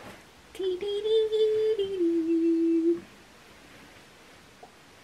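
A young woman humming a few held notes with her mouth closed, stepping up and then down in pitch, for about two and a half seconds, stopping about three seconds in.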